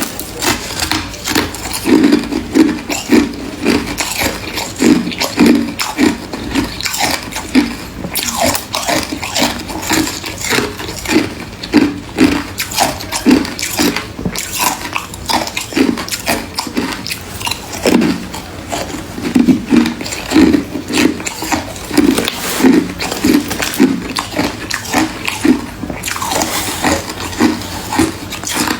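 Close-miked chewing of freezer frost: a steady run of crisp crunches, with a chomp roughly every half second.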